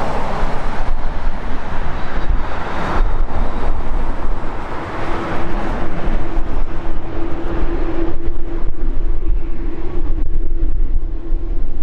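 Jet engines of a Boeing 787-9 rolling out on the runway after landing: a broad rush that fades over the first few seconds, then a steady whine comes in about halfway through and holds. Wind on the microphone adds a low rumble.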